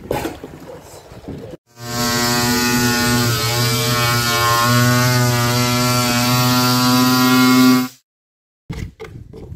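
Handheld electric angle grinder with a flap disc, running as it sands a plywood board: a steady hum from about two seconds in that stops abruptly about two seconds before the end, followed by a few light scrapes and knocks.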